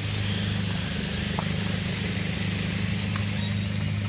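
Steady low hum of an engine running under a constant hiss, with a few faint short ticks.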